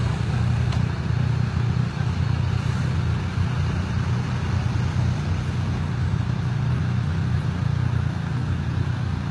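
Idling motor vehicle engines at a level crossing, a steady low hum that does not change.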